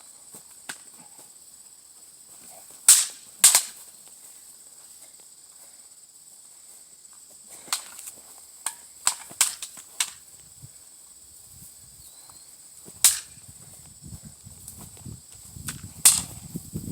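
A series of sharp cracks or knocks at irregular intervals: two close together about three seconds in, a quick cluster around the middle and two more later, with a low rumble rising near the end.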